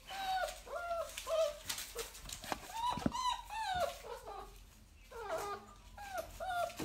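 Dog whining: a string of short, high, arching whimpers, one after another, that break off briefly about four seconds in and then start again.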